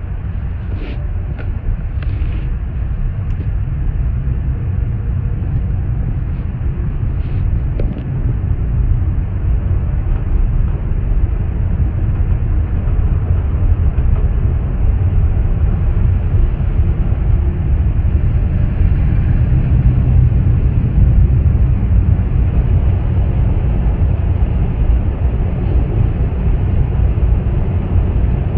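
Automatic tunnel car wash heard from inside the car: a steady low rumble of the wash machinery, brushes and water spray against the body, with a few light clicks in the first several seconds. It grows a little louder after about eight seconds.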